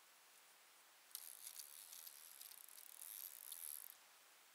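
Fishing reel clicking faintly in a fast, crackly run from about a second in until near the end, with a fish on the line bending the rod.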